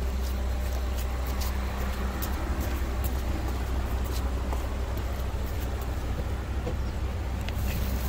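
Steady low roadside rumble with a faint steady hum and a few light clicks scattered through it; no single vehicle passes.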